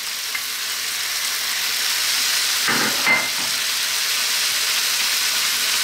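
Chicken, potato and onion frying hard in a non-stick skillet on high heat, a steady sizzle as chopped fresh tomatoes go in. A brief knock about three seconds in.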